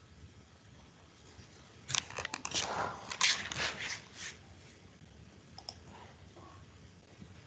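A burst of crackling clicks and rustle about two seconds in, lasting about two seconds, over faint steady hiss, with a few faint clicks after it.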